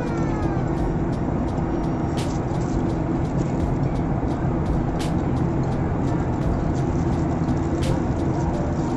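Steady airliner cabin noise in flight: an even rumble of engines and airflow with a constant hum, and a few faint clicks.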